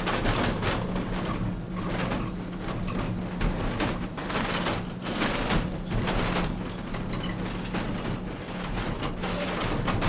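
Funicular cable car running on its rails, heard from inside the car: the wheels clatter and knock irregularly over a steady low hum.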